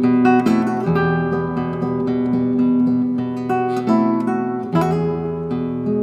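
Acoustic guitar music: plucked notes and strummed chords, changing chord every second or so.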